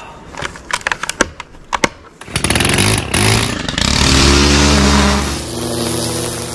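Stihl FS 130 brushcutter's petrol engine starting up a bit over two seconds in and running hard while trimming grass, loudest in the middle and settling to a lower, steady running near the end. Before it comes a rapid string of sharp clicks and knocks.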